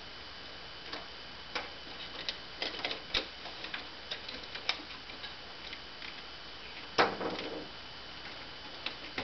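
Scattered light clicks and taps of plastic and wire as switch wires are pressed into the wire guides of a Kenmore Progressive canister vacuum's plastic handle, with a louder knock about seven seconds in.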